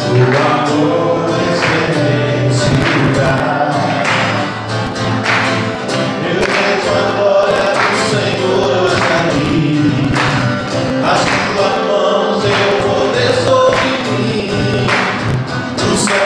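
Congregational gospel worship song: a man sings and strums an acoustic guitar while many voices sing along, with a steady beat of hand claps about every two-thirds of a second.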